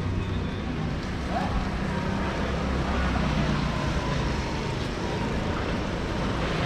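A motor vehicle's engine running close by over street noise, a low rumble that eases off about four to five seconds in.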